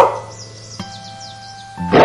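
A husky barks once at the start, over background music with held steady tones and a few faint high bird chirps. Near the end a tiger's roar begins loudly.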